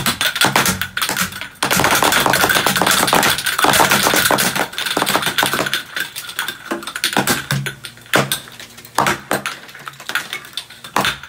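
Dozens of Alka-Seltzer film canister rockets popping off in quick succession: a dense run of sharp pops with canisters and lids landing on the table, thinning to scattered single pops in the second half.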